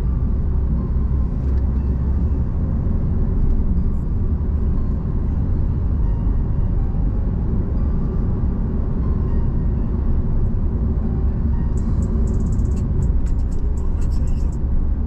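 Car driving along the road, heard as a steady low rumble of engine and tyre noise inside the cabin, with a short run of sharp clicks near the end.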